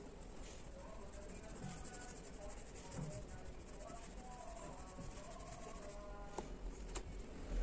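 Soft rubbing of a white-tipped blending tool on paper, smudging oil pastel into the shading, with a faint voice in the background.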